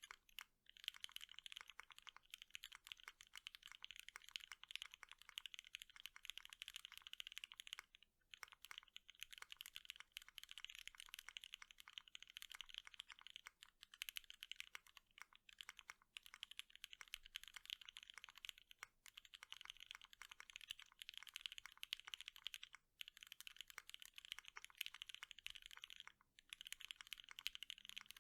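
Fast, continuous typing on an ATXKB Moontower V2 custom mechanical keyboard: O-ring mounted, with a POM plate and Gateron Ink V2 linear switches lubed with Krytox 205g0. The run of rapid keystrokes is broken by a few brief pauses.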